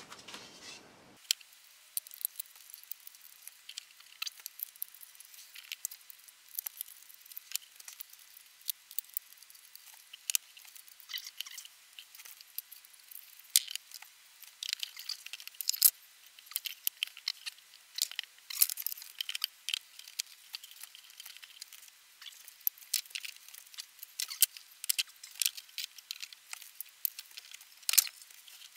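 Thin wooden panel boards of thermally modified sauna paneling being handled and set against one another, giving light, irregular clicks and clacks. This is the sound of pieces being dry-fitted around a box base. One sharper clack comes near the end.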